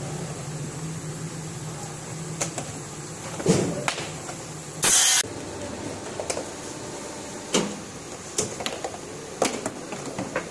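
Thin clear plastic bag crinkling and crackling in short bursts as a bundle of plastic lotas is wrapped by hand, with the loudest crackle about five seconds in. Under it a steady low hum stops about halfway through.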